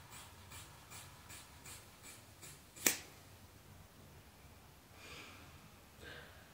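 Scissors snipping repeatedly through a thick ponytail of long hair, about three short snips a second. They end nearly three seconds in with one much louder, sharp snap as the blades cut through the last of the bundle.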